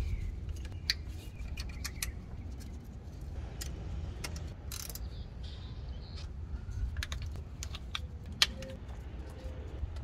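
Scattered light clicks and rattles of a car's wiring harness and its plastic connectors and clips being handled and fitted, a few clicks every second or so, over a low steady rumble.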